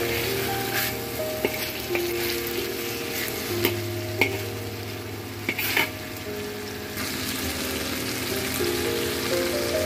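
Salmon steaks sizzling in hot oil in a pan, with a metal spatula scraping and turning them in several short strokes. After about seven seconds the frying changes to asparagus being stir-fried. Soft background music plays underneath.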